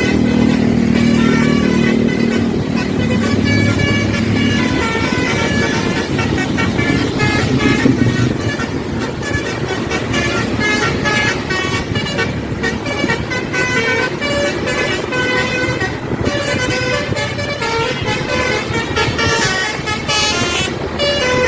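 Tour bus's basuri 'telolet' musical air horn playing a quick melody of short notes, over the bus engine running, which is strongest in the first few seconds.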